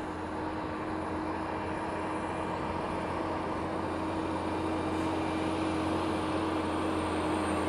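Heavily loaded truck's diesel engine pulling steadily up a steep grade, slowly growing louder.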